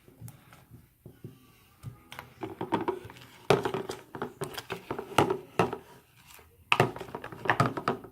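Slime mixture of glue, lotion and shaving cream being stirred in a bowl: a utensil clicks, knocks and scrapes against the bowl in irregular clusters. The stirring starts about two seconds in.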